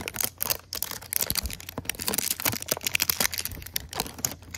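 Cardboard trading-card hanger box being pried and torn open by hand: a dense, irregular run of crackling and crinkling.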